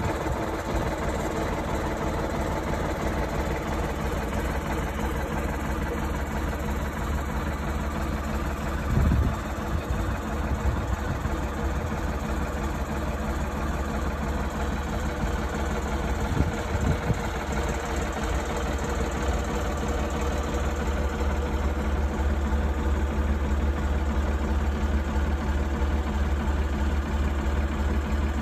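Steady low hum of an idling engine or similar motor, with a brief bump or knock twice along the way.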